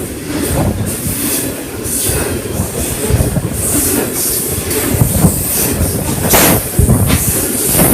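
Train wagons rolling past at close range. Steady rumble with irregular wheel clacks over the rail joints, and high-pitched wheel squeal that comes and goes.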